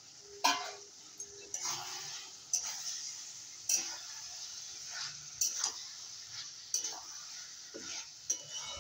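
Metal spatula stirring and scraping ivy gourd and potato pieces around a metal kadai, clanking against the pan about every second or so, over a light sizzle of the masala frying.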